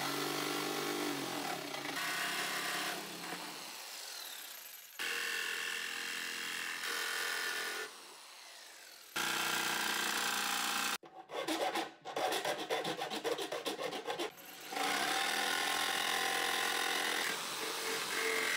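Corded electric jigsaw cutting round holes through the thin steel top of an ammo can, running in stretches that stop and start several times. A little past the middle it judders in a rapid stutter.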